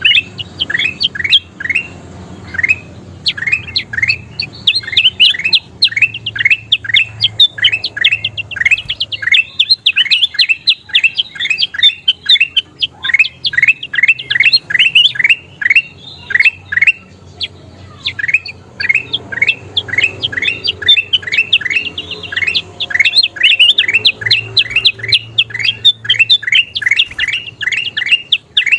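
Kutilang emas bulbul singing a fast, loud chattering run of short rising chirps, several a second, with a brief break a little past halfway.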